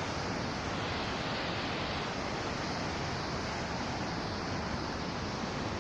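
Fast, white-water mountain river rushing over rocks, a steady, even rush of water noise.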